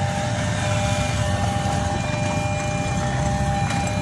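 Steady low rumble of a distant idling engine, with a few faint steady high tones over it.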